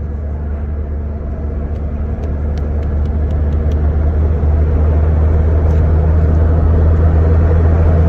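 Road and engine noise heard inside a moving car's cabin: a steady low drone that grows gradually louder, with a few faint ticks in the middle.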